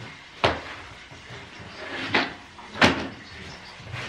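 Three sharp knocks, about half a second, two seconds and near three seconds in, as heavy objects are set down on a floor and rug.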